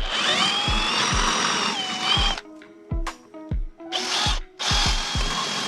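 Power drill running in bursts: one run of about two seconds whose whine rises as it spins up and drops before it stops, then two shorter runs near the end. Background music with a steady thumping beat plays throughout.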